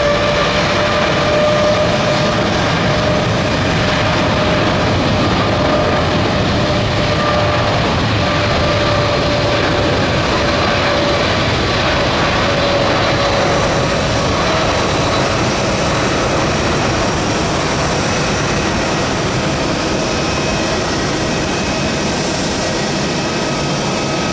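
Jet airliner's engines at takeoff power during the takeoff roll: a loud, steady rush of jet noise with a fan whine on top, easing slightly in the second half as the aircraft moves away.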